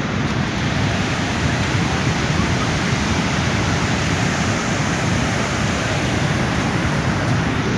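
Steady loud rushing of a river in flood, swollen by heavy rain.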